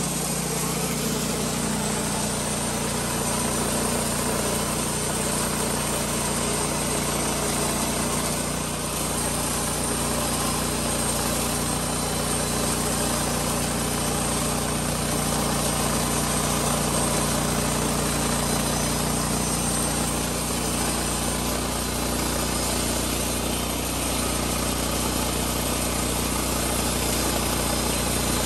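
Engine of a Hardwood Mills GT26 Deluxe portable bandsaw mill running steadily under load while the saw head feeds the blade through an old weathered timber beam.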